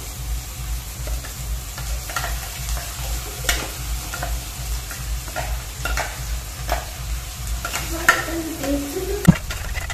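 Thick ground masala paste being scraped and tapped out of a steel mixer-grinder jar into an aluminium kadai: irregular clinks and knocks of spoon and jar, with short scraping squeaks and a loud knock near the end. Underneath there is a steady hiss and a low pulsing hum.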